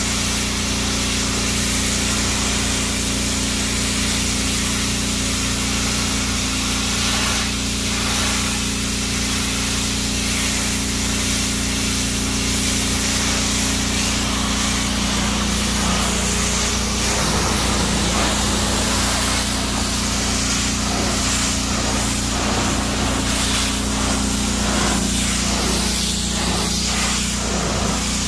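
Pressure washer jet hissing steadily as it blasts dirt off an old pickup truck's painted hood and grille, over a steady low hum.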